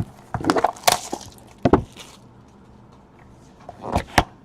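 Sealed trading-card box being torn open: a handful of sharp cracks and rips of cardboard and wrapping, with a double crack near the end.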